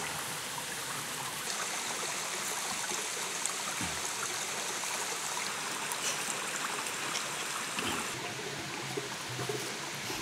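Steady rushing of a flowing stream.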